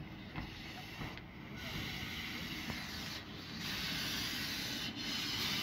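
Hiss of vapour jetting from beneath a small diesel shunting locomotive as it creeps forward, growing louder, with brief breaks every second or two over a low rumble.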